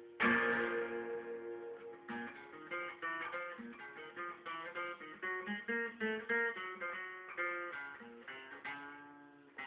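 Acoustic guitar played with a pick: a chord is strummed and left to ring, then a run of quickly picked single notes follows, several a second, with another chord struck near the end.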